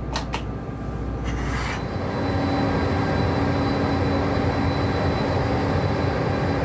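A Bombardier Traxx class 187 locomotive running with a steady hum and a faint high whine. The sound swells over the first two seconds and then holds level, with a couple of short clicks just after the start.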